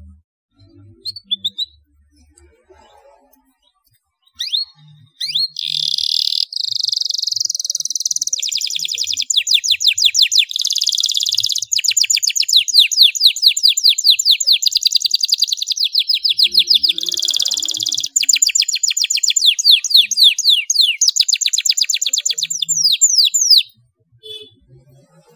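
Domestic canary singing: a few short chirps, then from about five seconds in a long, nearly unbroken song of rolling trills and rapid repeated sweeping notes, which stops abruptly shortly before the end.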